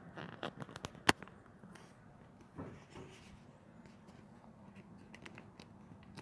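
Handling noise from a phone held close to the microphone: rubbing and small clicks, with one sharp click about a second in and a couple of softer knocks a little later.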